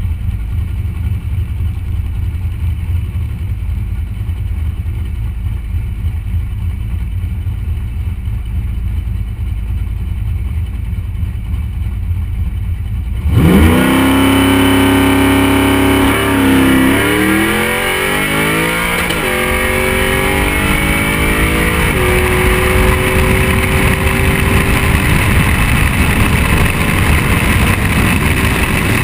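A drag car's engine idling low on the start line, then launching hard about 13 seconds in. The revs climb and drop back at each of three gear changes, then the engine holds a steady pitch at speed under heavy wind noise on the microphone.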